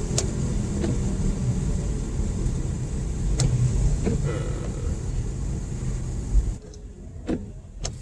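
Road noise inside a moving car on a wet road: a steady low rumble with tyre hiss and a few faint clicks, the hiss dropping away sharply about six and a half seconds in.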